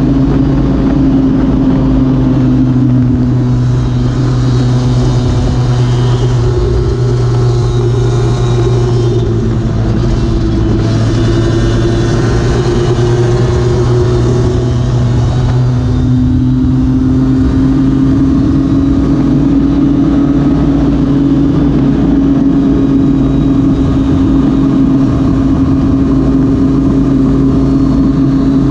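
Lambretta racing scooter's two-stroke engine at high revs, heard onboard. The pitch dips in the first few seconds, then climbs steadily through the second half as it pulls onto a straight.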